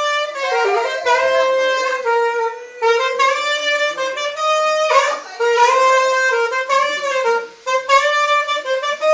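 Saxophone played live: a single melodic line of held and sliding notes, with brief pauses between phrases.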